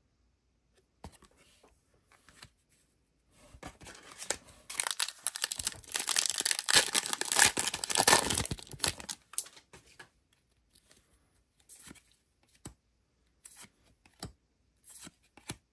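Foil trading-card pack being torn open and crinkled, a few seconds of loud crackling tearing through the middle. It is followed by scattered light clicks and slides of cards being handled.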